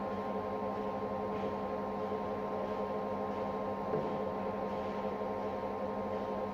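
Bimak 40 TF/C geared-head pillar drill running with no load, its 2.2 kW motor and gearbox making a steady hum of several tones. A light click about four seconds in.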